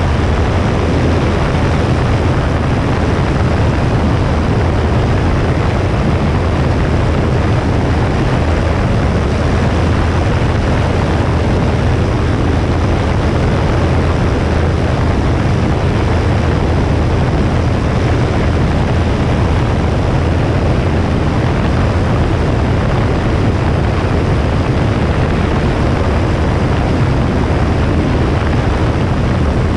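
Cessna 172S's four-cylinder Lycoming engine and propeller running at a steady drone, heard from a wing-mounted camera with wind rushing over the microphone.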